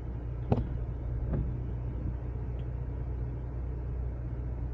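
Hyundai Veloster N's turbocharged four-cylinder running steadily, a low even hum heard from inside the car. There is a sharp click about half a second in and a fainter knock about a second later.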